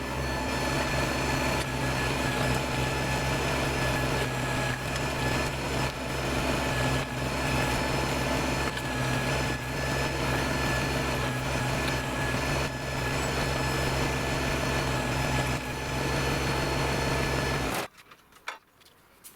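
Kubota BX25 sub-compact tractor's three-cylinder diesel engine running steadily, with a thin high whine over it. It cuts off abruptly about 18 seconds in.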